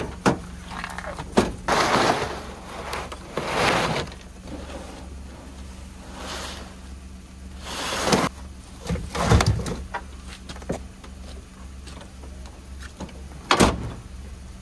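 Leer truck cap's rear lift glass unlatched with a sharp click and swung open, then gear being handled in the pickup bed: rustling and scraping swells, a few knocks around the middle and a loud thump near the end.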